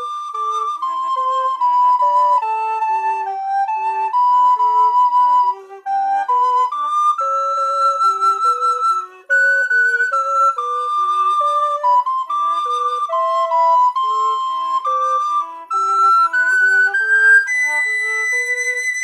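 Two recorders playing a duet: a higher melody in longer notes over a lower part that moves in quick, even broken-chord steps. The melody climbs and holds a high note near the end.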